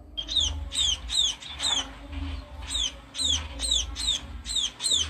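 Birds calling: a run of short, high chirps, each sliding downward in pitch, about two a second, with a brief pause around two seconds in.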